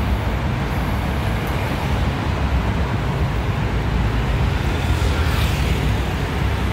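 Steady outdoor background noise: a low rumble with hiss and no distinct events, such as street traffic and wind on the microphone make.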